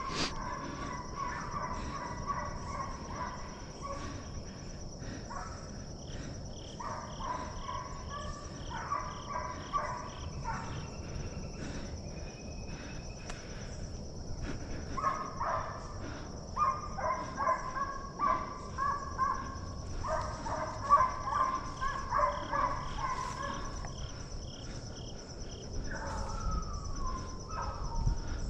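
A pack of deer hounds baying at a distance on a deer's trail, several voices overlapping in bouts with short gaps between, loudest a little past the middle. A steady high insect trill runs underneath.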